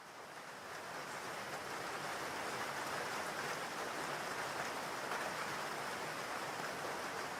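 Steady rain falling, fading in over the first couple of seconds and then holding at an even level.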